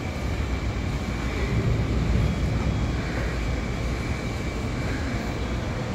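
Steady rumble of electric suburban trains around a rail yard, with a faint steady high whine over it.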